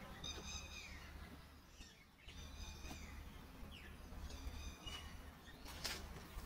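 A bird calling about every two seconds, each call short with several stacked high tones, over a steady low background rumble. A brief sharp noise comes near the end.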